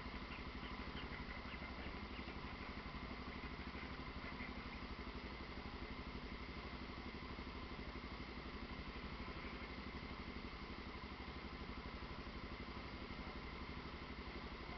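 Honda Falcon 400 motorcycle's single-cylinder engine running steadily, with an even, fast pulse and no change in speed.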